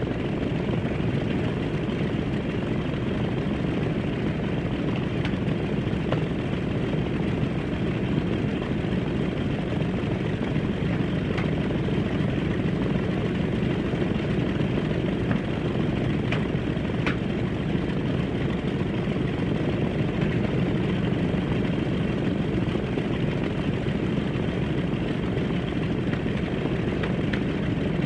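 Airplane in flight: a steady, unchanging drone of engines and rushing air, with a few faint clicks.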